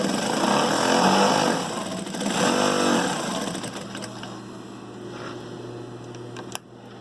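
Brother DB2-B755-3 industrial lockstitch sewing machine running at speed for about four seconds, then stopping, leaving a steady motor hum. A sharp click comes near the end.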